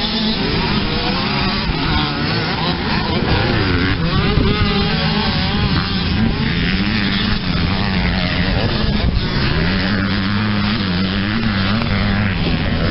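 Several motocross bikes racing together, their engines revving up and down as the riders work the throttle through the corners, the pitches overlapping.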